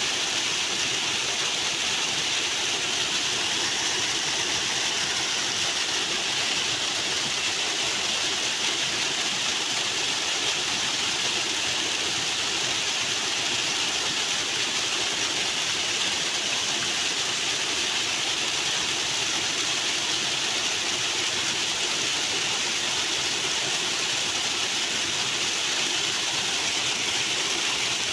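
Rushing water flowing in a steady, loud, unbroken rush.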